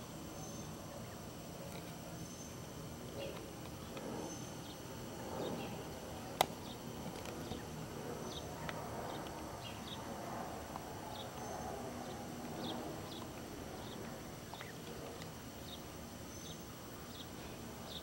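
Wild turkeys giving soft, short, high peeps that repeat irregularly, over a faint steady high hum. There is one sharp click about a third of the way through.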